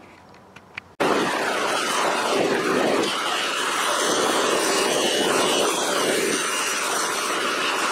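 A cast hammerhead held against a spinning polishing wheel on a bench grinder: a steady whirring hiss that swells and eases as the head is worked across the wheel. It cuts in suddenly about a second in.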